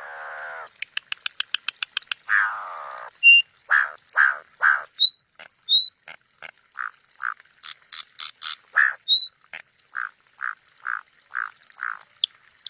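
Campo troupial (corrupião) calling in agitation at a person coming close: a run of short, harsh croaking notes about two a second, with a rapid clicking rattle and a rasping call near the start and a few short high whistles among them.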